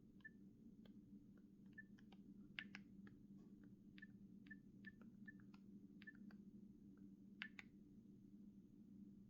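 Nokia 6670 keypad being pressed: faint button clicks, many with a short high key-tone beep, coming every half-second to a second and unevenly spaced, over a low steady hum.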